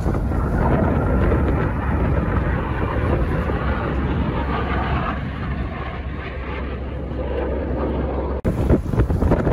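Steady roar of Blue Angels jets passing overhead in formation, mixed with wind buffeting the microphone. A brief dropout comes near the end.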